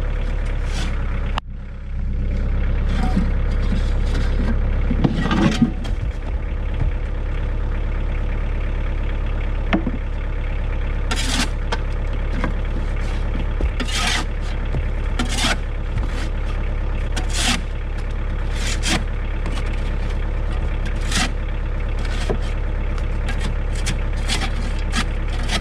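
Tractor diesel engine running steadily, with a brief break about a second and a half in, and short scraping or clanking noises every second or two in the second half.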